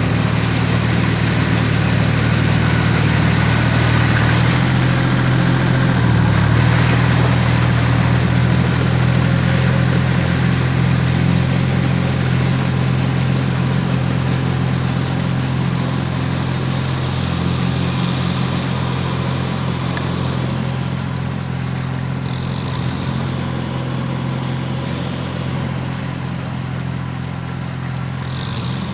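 Engine of a two-wheel tractor on cage wheels running steadily as it drags a levelling board through a flooded rice paddy.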